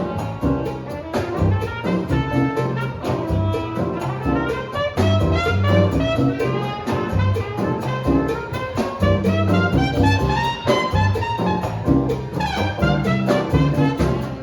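Latin jazz band playing live: fast runs of melody notes over a steady percussion beat.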